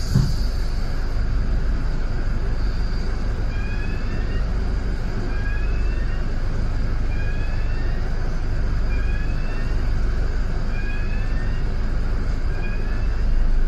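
Steady low rumble of a London double-decker bus's engine and road noise, heard from inside on the upper deck. A faint short rising tone repeats about every two seconds through most of it, with a brief knock at the very start.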